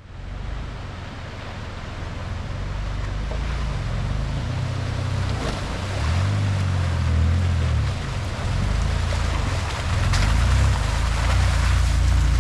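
A Toyota 4x4 driving on a snowy trail: the engine's low rumble rises and falls in pitch as it works, under a steady hiss of tyre and wind noise, gradually getting louder.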